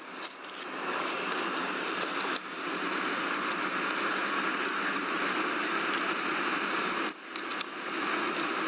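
Steady rush of air from a 2003 Ford Explorer's heater blower running inside the cabin, briefly dipping twice. A few light clicks come from the plastic glove box being handled.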